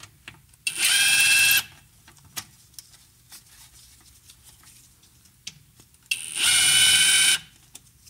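Cordless power driver whirring in two short runs of about a second each, one near the start and one about six seconds in, loosening the hose clamps on a rubber air intake tube. Faint handling clicks between the runs.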